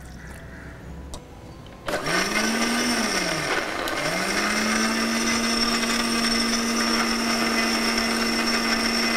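Electric mixer grinder blending carrot pieces with water into juice. It starts about two seconds in, spins up and winds down in a short pulse, then starts again about four seconds in and runs steadily at full speed.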